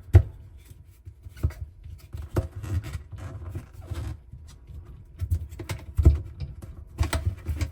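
Irregular plastic clicks, knocks and scraping as a dishwasher spray arm is worked loose from its plastic brackets with a thin tool, with dull handling thumps.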